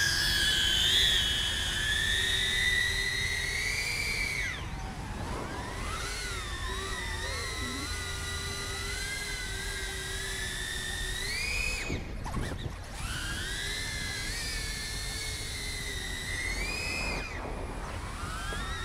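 DJI Avata FPV drone's motors and propellers whining at high pitch, the pitch gliding up and down with the throttle. The whine drops away sharply and comes back three times, about four seconds in, around twelve seconds and near the end, as the throttle is cut and reapplied through freestyle manoeuvres.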